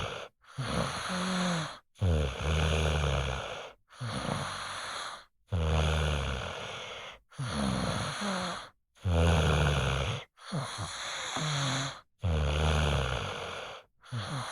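A child snoring in deep sleep: about eight even breaths, each a low rattling snore mixed with breathy noise, one every one and a half to two seconds, broken by short abrupt silences.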